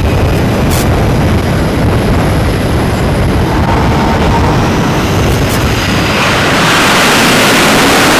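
Jet engines of F/A-18 Super Hornets running on a carrier flight deck: a steady loud roar with a low rumble and a faint high turbine whine. About six and a half seconds in the roar swells louder and hissier, as a jet is run up to higher power.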